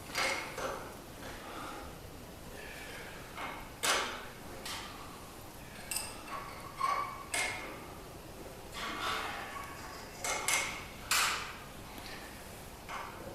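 A series of irregular knocks and clanks, about ten in all, several of them ringing briefly like struck metal, as hardware is handled.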